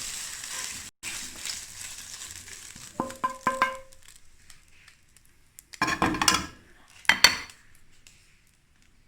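Shrimp sizzling in hot oil in a frying pan, then a few ringing metal clinks of a utensil against the pan about three seconds in, followed by two short louder scraping sounds.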